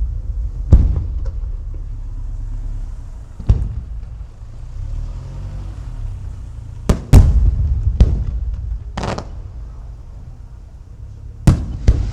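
Aerial fireworks shells bursting: about eight sharp booms at irregular intervals, each trailing off in a low rumble, with two in quick succession about seven seconds in and another pair near the end.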